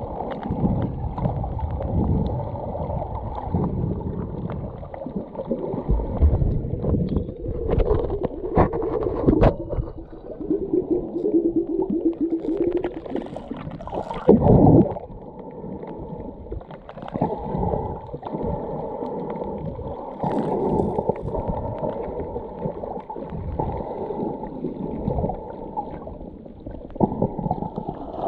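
Outdoor ambient noise: an uneven low rumble that rises and falls throughout, with a brief louder surge about halfway through.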